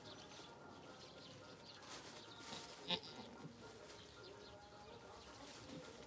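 Goat doe in labour giving one short, sharp bleat about three seconds in, over a faint outdoor background.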